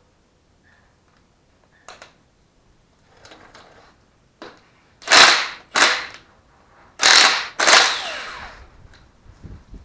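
An impact wrench fired in short bursts while bolts are broken loose on an engine short block: four loud, sharp rattling bursts in the second half, after a few fainter knocks.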